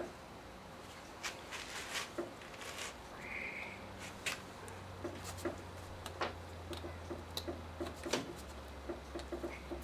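Quiet handling noises: scattered small clicks and taps of gloved hands working the spark plug boots and leads on a Johnson 15 hp outboard's powerhead, with a brief squeak about three seconds in.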